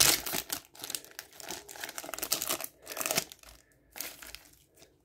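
Foil Yu-Gi-Oh booster pack wrapper crinkling and tearing as it is pulled open by hand: a run of crackly rustling for about three seconds, then one shorter rustle about a second later.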